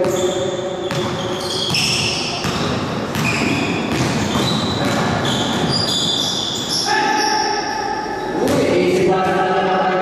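Basketball bouncing on an indoor court, with short high sneaker squeaks and players' shouts echoing around the gym.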